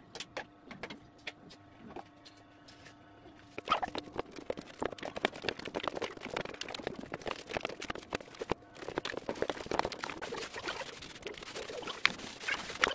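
A faint steady hum with a few light taps, then, about four seconds in, dense crinkling and crackling of plastic wrap being handled as the machine is wrapped for packing.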